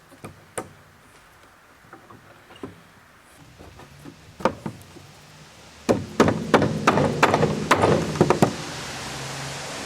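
Wooden knocks and clatter as 2x6 tongue-and-groove door boards and clamps are handled and set, scattered at first, then a quick run of louder knocks about six seconds in. A steady low hum starts at the same moment and keeps going.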